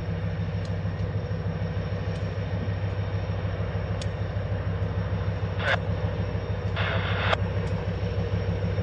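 Diesel locomotive engine running with a steady low drone as the unit rolls slowly toward the listener, with a few sharp clicks and a short hissing burst about seven seconds in.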